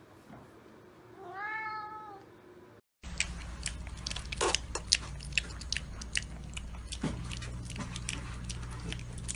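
A cat meows once, a single call of about a second that rises and then falls in pitch. Then, after a sudden cut, comes a run of quick irregular clicks over a steady low hum.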